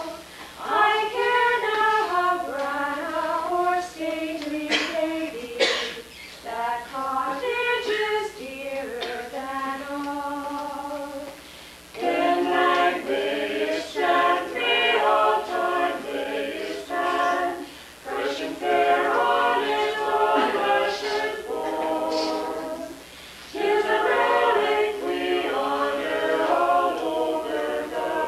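A small mixed group of singers, men and women, singing together unaccompanied, line by line with short pauses between phrases.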